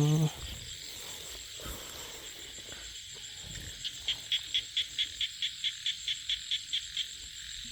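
Frog and insect chorus of a rice field at night, steady and high. From about four seconds in, one caller close by gives a run of about fifteen sharp, evenly spaced pulses, about five a second, which stops about a second before the end.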